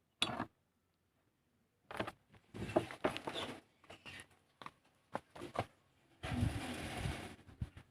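Hands handling motorcycle parts: a quick knock at the start, a run of irregular clicks and knocks, then about a second of rustling near the end.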